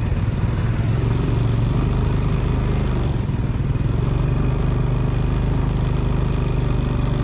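A small engine running steadily at an unchanging pitch, with no revving.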